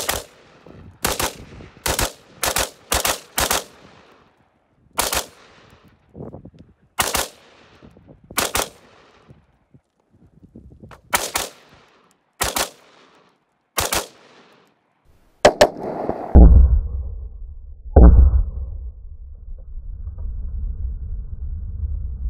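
An FN-15 5.56 AR-15-pattern rifle with a binary trigger firing about fourteen shots, several in quick succession, then spaced out. Near the end come two louder shots over a steady low rumble.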